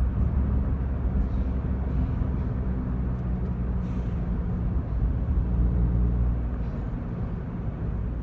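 Chevrolet Corsa heard from inside the cabin while driving on a highway: a steady low engine drone mixed with tyre and road noise.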